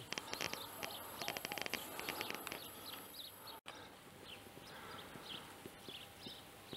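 Small birds chirping outdoors. The first half is quick twittering; after a brief dropout about halfway, short downward-slurred chirps come about one or two a second.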